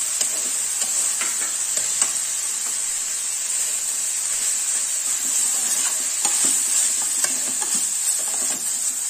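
Shredded cabbage and prawn masala sizzling in a hot frying pan while being stirred, a steady frying hiss with the metal utensil scraping and clicking against the pan now and then.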